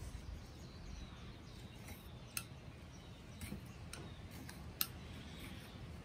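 Handheld leather skiving tool shaving down a leather strip on a stone slab to thin it: faint scraping with a handful of sharp clicks, the loudest near the end.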